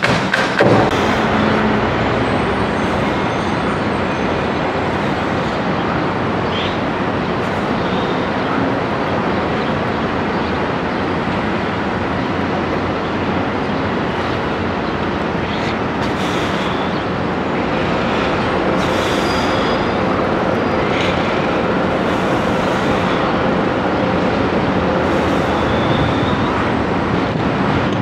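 Steady din of engines and traffic, with a few faint, short, high chirps over it.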